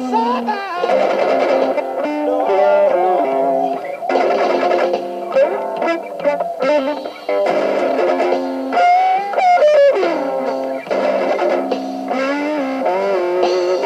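Electric guitar playing lead lines: sustained notes with frequent string bends and vibrato, without bass or drums.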